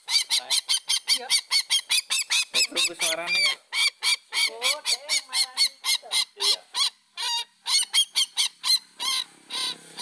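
Sintar (ruak-ruak) rail calling in a fast run of short, harsh, honking notes, about four a second, the call used to lure these birds. A lower, wavering call comes about three seconds in, and near the end the notes turn rougher and less distinct.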